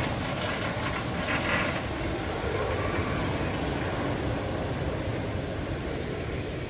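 Chance Rides Hyper GT-X steel roller coaster train running along its track: a steady rushing rumble, with a brief brighter surge about a second and a half in.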